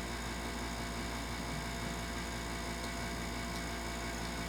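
Steady electrical mains hum with a background hiss, with two faint light ticks about three seconds in.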